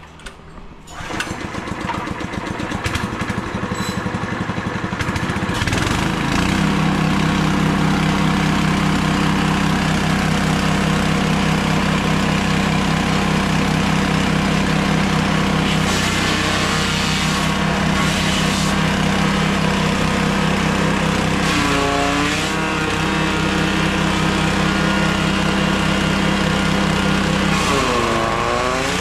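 Small 7 hp petrol engine of a grass chopper starting about a second in, running up to speed over a few seconds and then running steadily. From about halfway the chopper is cutting grass stalks fed into it, and the engine's pitch dips briefly under the load twice, once near the end.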